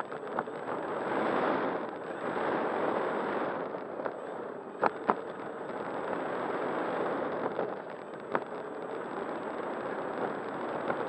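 Wind rush and electric motor noise heard on an RC model plane's onboard camera, swelling and fading, with sharp clicks about five seconds in and again near eight seconds.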